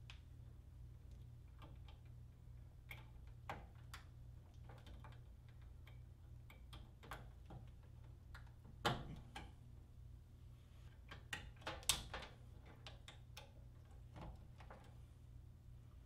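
Faint scattered clicks and taps of wires and spade connectors being handled at an air handler's control board, over a low steady hum. The sharpest clicks come about nine and twelve seconds in.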